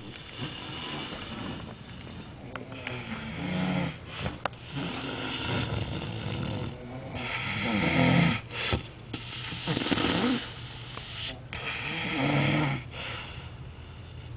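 A man snoring heavily in his sleep, a rasping snore every two to three seconds, some louder than others.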